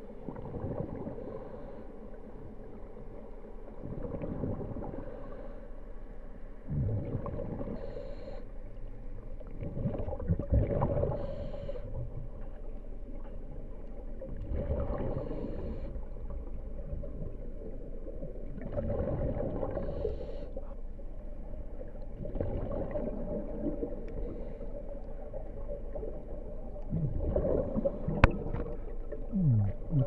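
Muffled underwater water noise heard through a submerged camera, swelling and surging every three to four seconds as the water moves. There is one sharp click near the end.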